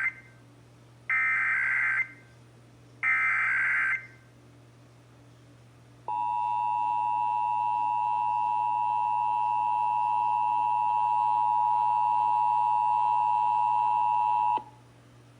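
Emergency Alert System test signal: the end of one SAME header data burst and two more bursts, each a harsh warbling screech about a second long, a second apart. About two seconds later the steady two-tone EAS attention signal (853 and 960 Hz together) sounds for about eight and a half seconds and cuts off abruptly.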